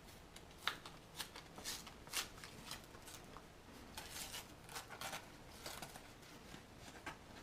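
A mailed package being torn open by hand: a run of irregular crinkling, rustling and tearing of its wrapping, with sharper crackles about a second and two seconds in.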